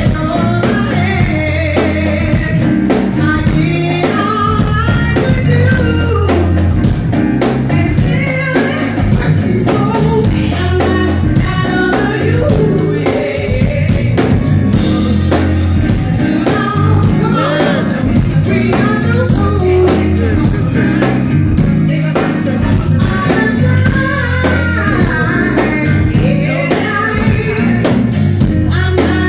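A woman singing a house song live through the PA, backed by a band with drum kit and bass guitar.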